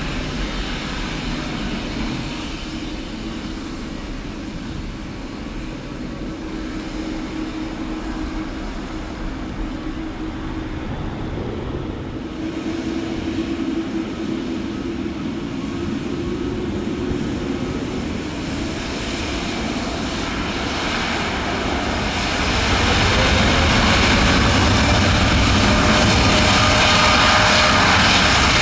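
Boeing 787-8 jet engines running with a steady whine over a low rumble, then spooling up: the pitch rises and the sound grows clearly louder about three quarters of the way through.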